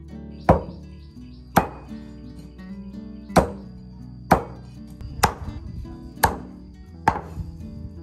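Meat cleaver chopping duck on a thick round wooden chopping block: seven sharp strikes at uneven intervals, roughly one a second.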